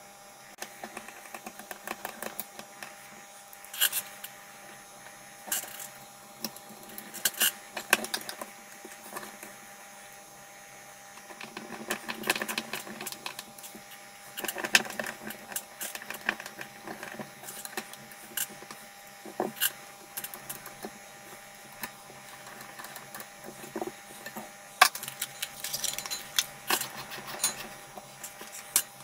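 Hand-assembly sounds: a small screwdriver driving screws into a cooling fan's wire guard and frame, with irregular clicks, taps and light scraping of small metal and plastic parts being handled, a few sharper ticks standing out, over a faint steady hum.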